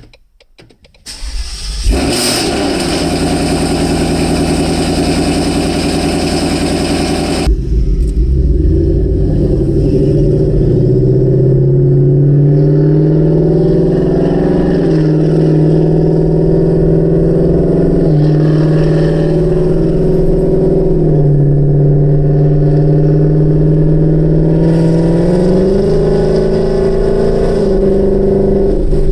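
2018 Ford Mustang GT's 5.0 Coyote V8 cold-starting through a free-flowing exhaust with Borla S-Type axle-back mufflers: it fires about two seconds in and runs at a raised cold idle. About five seconds later the sound turns deeper and duller, and the idle then holds with small steps up and down in pitch.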